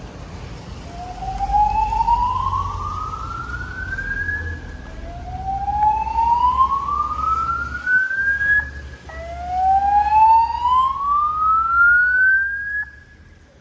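Fire alarm voice-evacuation speakers sounding the slow-whoop evacuation tone: three rising sweeps, each climbing for about four seconds and then starting over from low, with a low rumble underneath.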